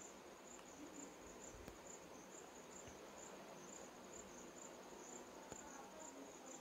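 Near silence with faint, high insect chirping, pulsing about twice a second, typical of a cricket.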